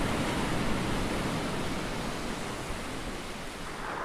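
A steady, even rushing noise that eases down gently toward the end, without swells.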